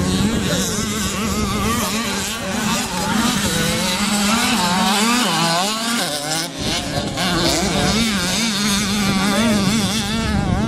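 65cc two-stroke motocross bikes running hard, their engine note rising and falling quickly as the riders work the throttle, with a brief dip about six seconds in.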